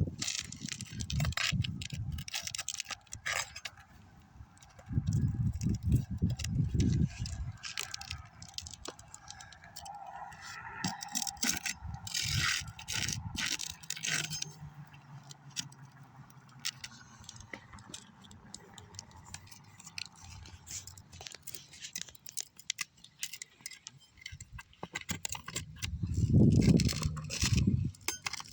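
Irregular scraping, clicking and rattling of hand tools working against asphalt roof shingles as a damaged shingle tab and its nails are pried loose. Two low rumbling bursts come about five seconds in and again near the end.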